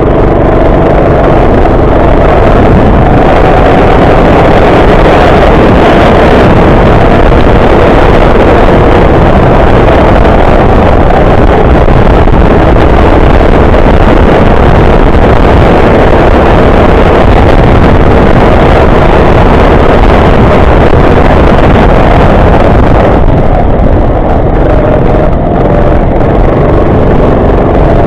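Go-kart engine running hard, with a dense rushing hiss of wind and wet-track spray over it. About 23 seconds in the hiss eases and the engine note stands out more clearly.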